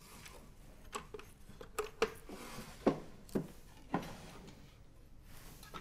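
Someone rummaging at a low cabinet: a string of small knocks, clicks and rustles as objects are handled and moved.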